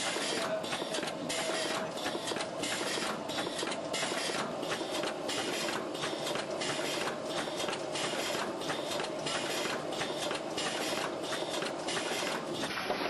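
Ellepot paper-pot machine running as it forms a continuous paper-wrapped tube of growing medium: a steady mechanical whirr with repeated clicks, about two to three a second.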